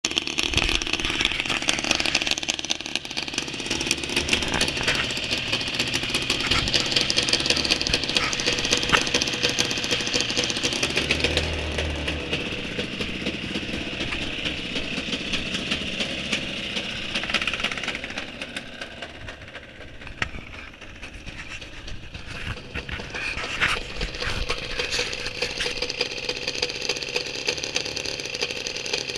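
200cc inline-twin gas engine of a large model airplane running steadily. It drops lower about two-thirds of the way through, then picks up again.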